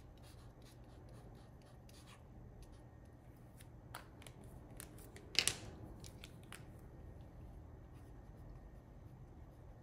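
Faint handling and writing sounds of Posca paint markers: the tip rubbing on black card stock and light clicks as markers are picked up and put down. One louder knock comes a little over five seconds in.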